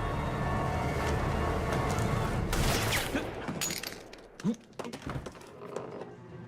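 Tense dramatic soundtrack music, cut by a loud gunshot about two and a half seconds in, followed by several sharp cracks and knocks of a brief shootout.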